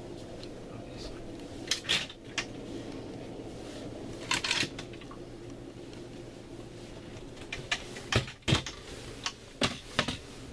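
Scattered sharp clicks and knocks, like cabinet doors and latches being handled, in a few small clusters, the busiest near the end, over a steady low hum.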